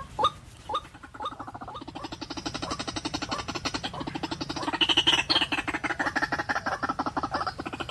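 White-breasted waterhen calling: a few short upswept notes in the first second or so, then a fast pulsing chatter that builds, loudest about five seconds in, and keeps going.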